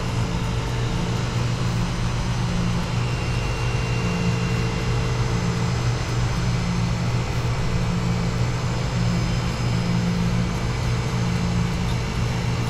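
Condensing unit of a commercial two-door refrigerator running steadily: a low hum with the even rush of the condenser fan. The condenser coil is matted over with a blanket of dust, so the fan pushes only weak, hot air, which is why the fridge runs warm.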